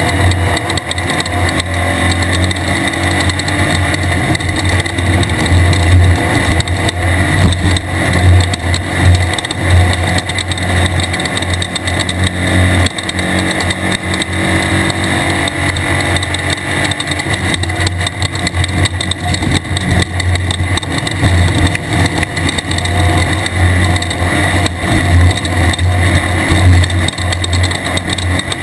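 1600-class desert race car's engine running continuously at racing speed. It is a loud, steady drone with small rises and falls in level.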